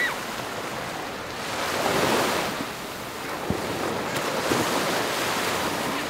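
Ocean surf breaking and washing up the beach, a steady rush that swells louder about two seconds in, with some wind on the microphone.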